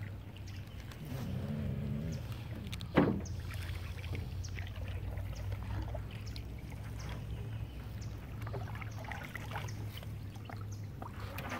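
Canoe being paddled: paddle strokes and small splashes and clicks in the water over a steady low hum, with a single sharp knock about three seconds in.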